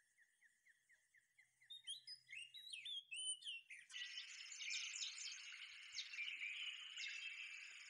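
Birds calling: one repeats a short high note about four times a second while others chirp over it. About four seconds in, a denser, louder chorus of high chattering and buzzing starts and carries on.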